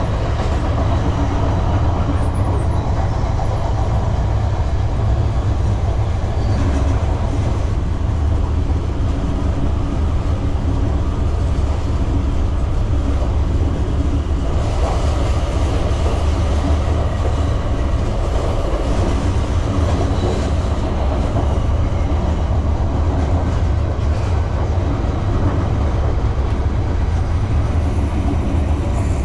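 Shinkansen train running: a steady, even low rumble of the train and its wheels on the track.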